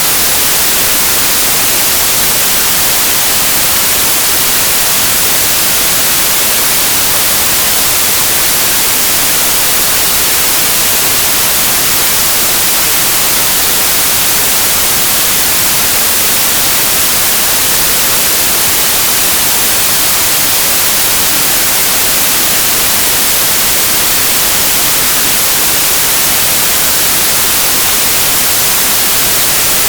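Steady, unchanging white noise: an even hiss, loudest in the high end, with no breaks or changes.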